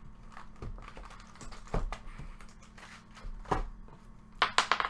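Scattered light clicks of small hard objects being handled, then near the end a quick clatter of ringing clicks like dice tumbling onto a hard surface.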